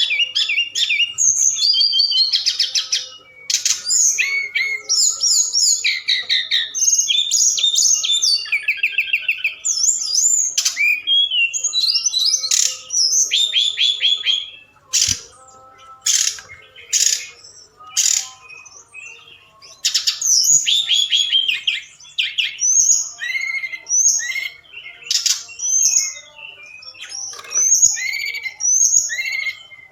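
Tledekan gunung (hill blue flycatcher) singing energetically in a loud, fast, varied song of high whistled phrases and quick falling trills, with short pauses between the phrases and a few sharp clicking notes about halfway through. It is a 'gacor' lure song meant to provoke other birds into answering.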